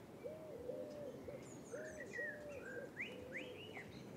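A pigeon cooing in a run of repeated low notes, with small birds chirping higher above it through the middle.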